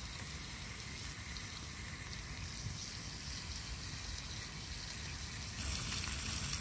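Ribeye steaks sizzling in butter in a pan, a steady frying hiss that gets louder and brighter about five and a half seconds in.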